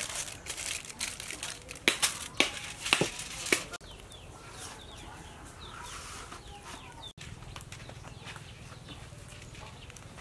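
Aluminium foil crinkling in sharp crackles as food is folded into foil packets, stopping about four seconds in; after that, quieter outdoor background with chickens clucking.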